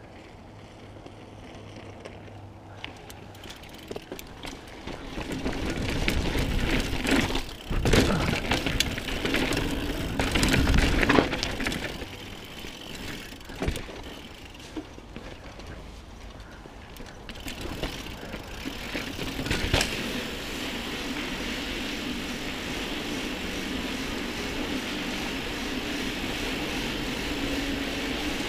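Mountain bike rolling over a dirt and rock trail, heard from a camera on the bike: tyre noise with knocks and rattles as it hits bumps, loudest between about 6 and 12 seconds in, then a steadier rolling noise.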